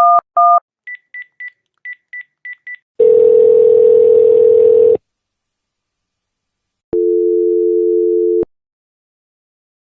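Telephone keypad tones: two dual-tone key beeps, then a quick run of short, higher, fainter beeps. About three seconds in, a steady line tone sounds for about two seconds, and after a pause a second, lower tone sounds for about a second and a half, as when a dialled call is ringing through.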